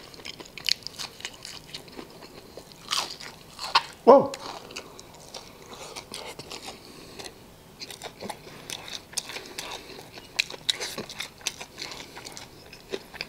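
Close-up biting and chewing of a breaded, fried jalapeño popper: crisp crunches and many small clicks, loudest about four seconds in.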